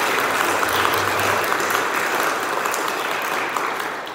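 Church congregation applauding, a dense sustained clapping that eases off near the end.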